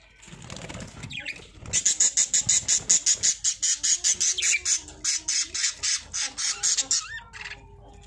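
Budgerigar giving a rapid, even run of harsh squawks, several a second, from about two seconds in until about seven seconds in, with a few short rising chirps before and after.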